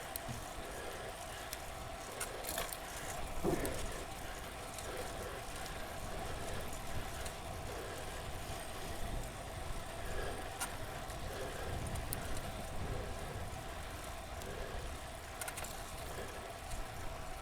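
Bicycle being ridden hard at a sprint: steady wind and road rumble on the microphone, with a soft rhythmic pulse about every second and a half from the rider's heavy breathing, and a few sharp ticks.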